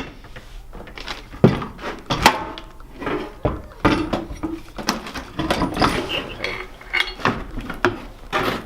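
Loose metal hardware (bolts, nuts and washers) clinking and knocking irregularly as hands rummage through it, with a few sharper knocks.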